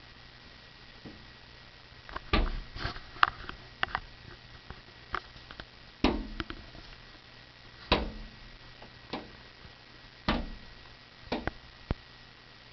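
Wild turkey gobbler pecking and banging against a glass sliding door: about a dozen irregular sharp knocks, some in quick pairs, starting about two seconds in. The owner thinks the bird is probably going after its own reflection in the glass.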